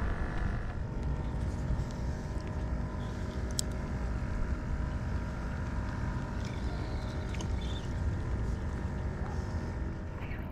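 Steady mechanical hum of a Pelican Catch PWR 100 kayak's pedal drive being pedalled, over a constant low rumble.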